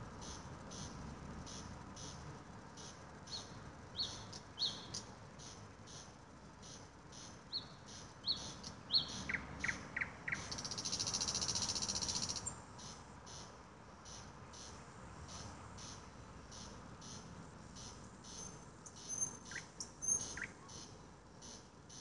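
Outdoor night ambience: an insect chirping in a steady rhythm about twice a second, with short high bird whistles scattered through the first half. A loud buzzing trill lasts about two seconds near the middle, over a faint low background rumble.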